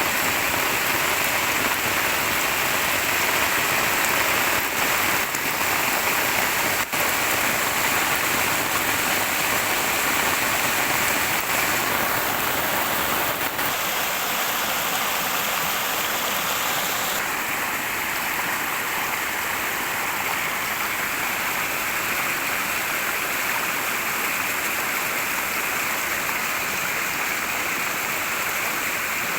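Heavy rain pouring down, a steady loud hiss. Its tone shifts slightly about twelve and seventeen seconds in.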